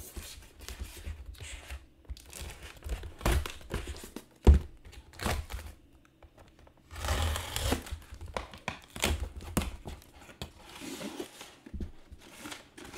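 Cardboard shipping box being opened with a box cutter: tape slit and torn, cardboard flaps rustling and scraping, with a sharp knock about four and a half seconds in and a longer tearing stretch about seven seconds in.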